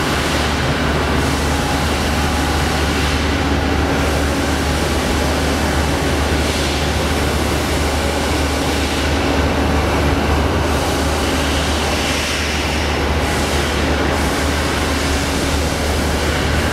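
Steady, loud mechanical rumble with a low hum and a few faint steady tones running through it, with no clear strokes or rhythm: machinery running in a shop.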